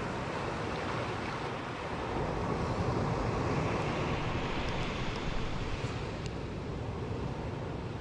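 Ocean surf breaking and washing up a sandy beach. The wash swells about two seconds in and fades over the next few seconds.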